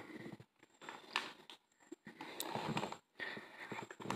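Crinkling and rustling of a chocolate bar's paper-and-foil wrapper as a piece of the milk chocolate bar is broken off by hand, with a few sharp clicks among the rustles.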